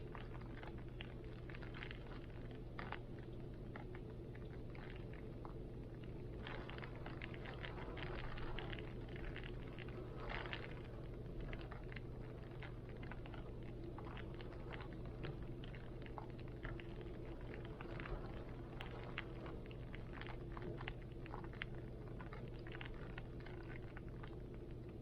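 Rain falling steadily, with many irregular drops pattering, over a constant low rumble of wind.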